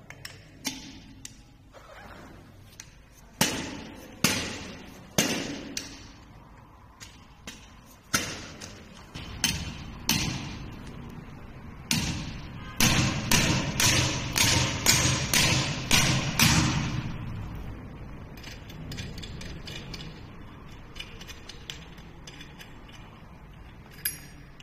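A star nut being driven into an e-bike fork's steerer tube with a star-nut setting tool, heard as repeated sharp knocks. They come singly at first, then in a quick run of about two a second in the middle, then fainter.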